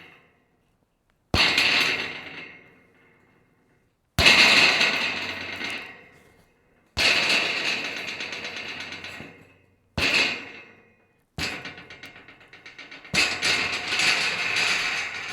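Scrap metal pieces rattling and clattering in six separate bouts. Each starts with a sharp clash and rattles on as it dies away over one to three seconds. The last bout, near the end, is the longest.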